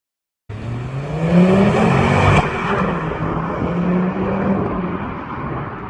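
Ford Focus ST's turbocharged 2.5-litre five-cylinder engine pulling hard, its pitch rising over the first second, with a sharp crack about two seconds in; it then holds a steadier note and falls off a little near the end.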